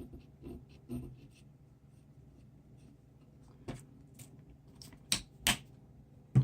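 Small handling sounds of tools and parts on a workbench. Soft quick scraping strokes come first, followed by a few separate sharp clicks and taps, the loudest at the very end.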